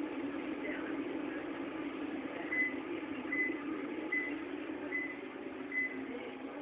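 Electronic beeping: five short, high beeps evenly spaced about 0.8 s apart, starting about two and a half seconds in, over a steady low hum.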